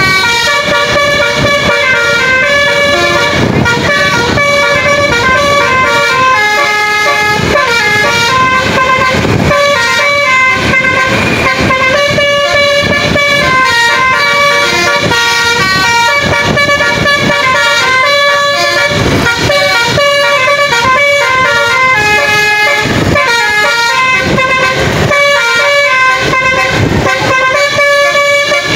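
Bus's basuri musical air horn ('telolet basuri') playing a continuous tune, note after note in stepping pitches, with a few short breaks.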